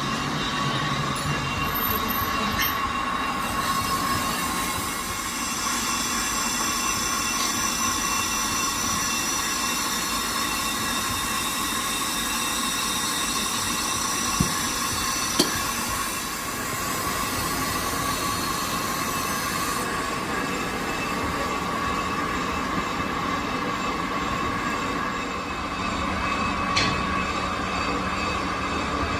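Steady drone of workshop machinery with a constant high whine, and a few short knocks around the middle and near the end.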